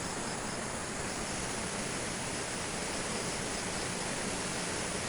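Steady rushing of a swollen river, an even, unbroken noise.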